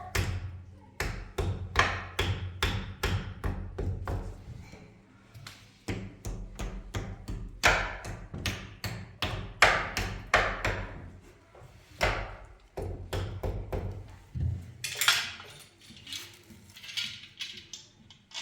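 A series of irregular knocks and thuds, several a second with short pauses between runs.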